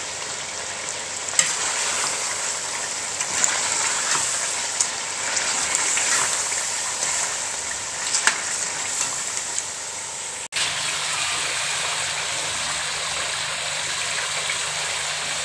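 Beef masala curry frying in oil with tomatoes and yogurt, a steady sizzle as the masala is cooked down, with a few sharp clicks of stirring in the first half. The sound breaks at a cut about ten seconds in, then the sizzle goes on over a faint low hum.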